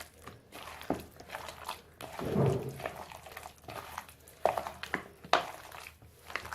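Scattered light clicks and knocks of a bowl and utensils being handled while marinated chicken is mixed, with one louder, duller knock about two and a half seconds in.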